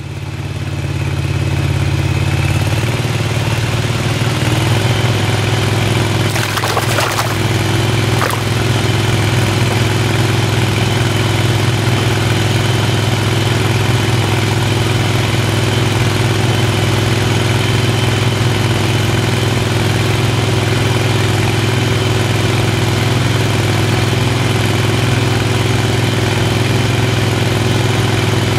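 Small Tohatsu outboard motor running steadily at cruising speed, pushing a pipe raft across the water, with a brief knock about seven seconds in.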